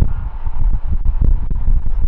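Low, gusty rumble: wind buffeting the microphone over the steady roar of a Lufthansa Airbus A380's four Rolls-Royce Trent 900 engines on final approach.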